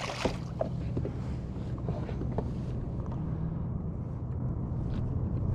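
A Spanish mackerel rigged as live bait splashing at the surface right beside a kayak at the start, then steady wind and water noise with a faint low hum and a few small knocks.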